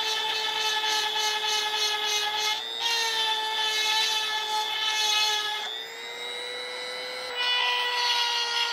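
Seesii electric chainsaw sharpener, a small high-speed rotary tool, whining steadily while its grinding bit files the chain's cutters with a gritty rasp. About six seconds in the grinding stops for a moment and the motor spins free, its pitch rising slightly, then the grinding resumes.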